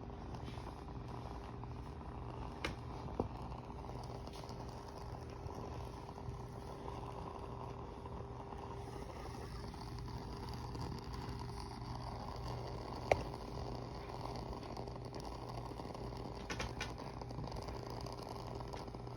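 Burning candle crackling: a few sparse, sharp pops, the loudest about two-thirds of the way through, over a steady low hum.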